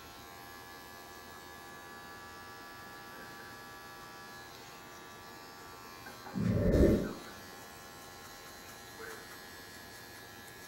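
Wahl electric hair clippers buzzing steadily while cutting a skin taper. A little past halfway through, a brief loud low rumble or bump lasts about a second.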